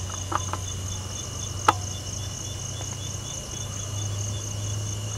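Crickets trilling steadily at two high pitches, the higher one pulsing evenly, over a low steady hum. A single sharp click about a second and a half in.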